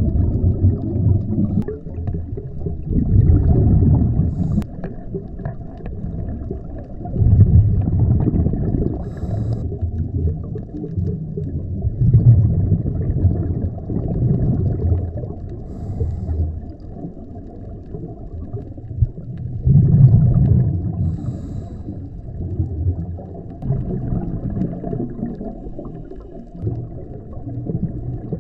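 Scuba regulator breathing heard through an underwater camera housing: muffled rumbling bubble exhalations that swell up every few seconds, with a faint hiss now and then.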